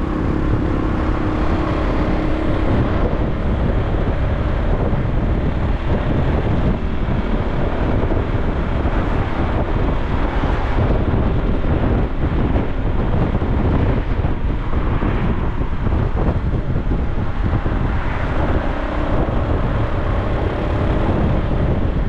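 A vehicle driving, a steady rumble of engine and road noise, with wind buffeting the microphone.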